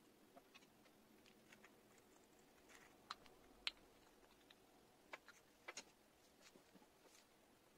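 Near silence with scattered faint clicks and taps as a small aluminium eyeshadow refill pan, its lid and a knife are handled and set down; a few sharper ticks come between about three and six seconds in.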